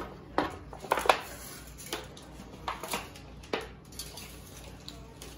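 Knife and pan knocking and clattering while smoked brisket is sliced and handled: a scatter of short, irregular knocks, the loudest about a second in.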